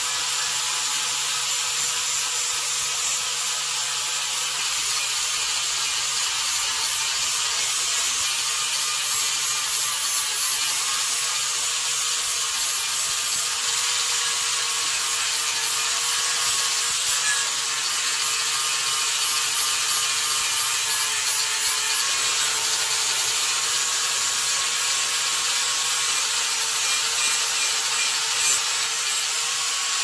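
Handheld electric angle grinder with an abrasive disc grinding the face of a steel plate, running steadily with a constant motor whine under the rasping hiss of the disc on the metal.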